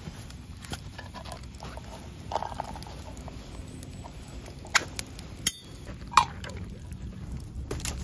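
A ring-pull can of sweetcorn being opened and handled over a campfire: a few sharp metallic clicks and taps, the loudest about five and a half seconds in, over a low steady background of the wood fire.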